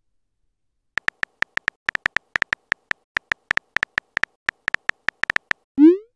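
Virtual phone keyboard tap sounds from a texting app: about thirty short, high clicks in an uneven typing rhythm as a message is typed, then a short rising whoosh near the end as the message is sent.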